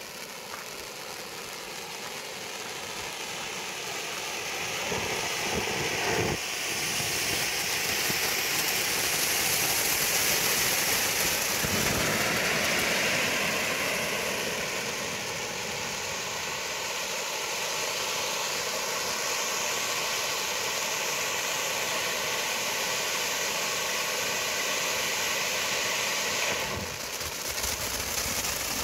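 Two Chaos Fireworks ground fountains, Sonate and Caress, spraying sparks with a steady rushing hiss. The hiss grows louder over the first several seconds, then holds, with a dip near the end.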